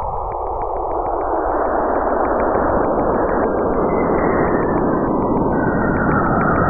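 A space sound presented as a NASA recording: a dense, eerie roaring hiss that swells louder and deeper, with a fast, even ticking along its top.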